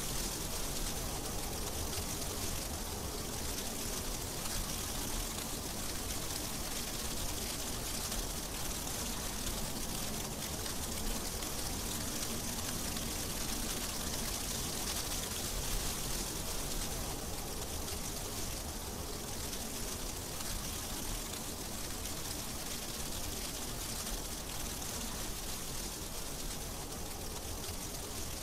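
Steady, even hiss of heavy snowfall.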